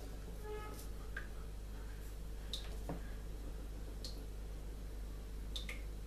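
Pencil on drawing paper: a few faint ticks and brief high squeaks as the graphite touches and strokes the paper, over a steady low hum.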